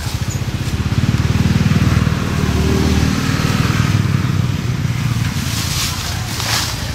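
A motor vehicle engine running with a steady low rumble. It swells over the first couple of seconds, then eases off.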